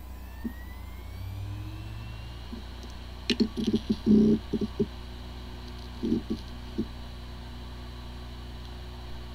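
Hard disk drive powering up: the spindle motor spins up with a rising whine over the first two seconds or so, then a quick cluster of head seek ticks about three to five seconds in and a few more around six seconds, over a steady spinning hum. It sounds like a healthy drive, but this one has disk firmware corruption and the computer cannot detect it.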